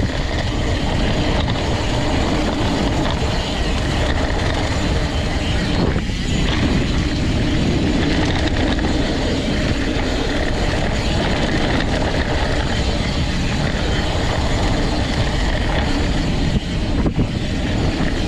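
Mountain bike ridden at speed over a dirt trail: steady tyre rumble and rattling of the bike, with wind buffeting the action camera's microphone, and a sharper jolt near the end.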